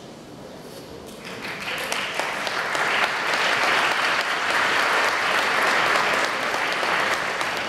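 Audience applauding, starting about a second in, building up and then fading near the end.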